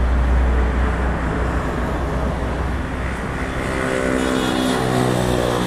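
Road traffic: a vehicle going by with a deep rumble that fades after about two seconds, then the steady drone of another vehicle's engine.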